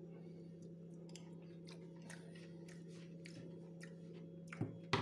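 Faint chewing of a spoonful of frozen yogurt with granola and pecans, a scatter of small crunching clicks over a steady low hum. Near the end come two sharper knocks, the second the loudest.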